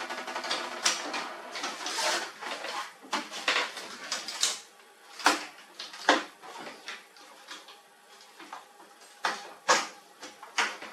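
Irregular clicks, clinks and knocks of hard plastic and metal printer parts being handled and fitted during laser printer disassembly.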